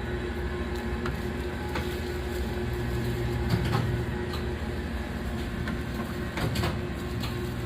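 Rice-grain mochi (chapssal-tteok) forming machine running with a steady motor hum, a few light clicks and knocks from its mechanism now and then, as it turns out round rice-cake pieces.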